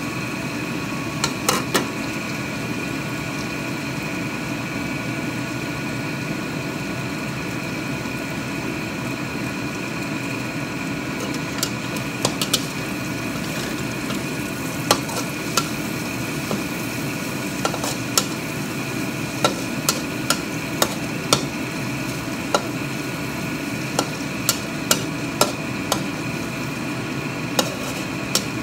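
Metal spatula scraping and knocking against a wok while mushrooms, meat and garlic chives are stir-fried, with sharp irregular clicks scattered throughout over a steady background hum.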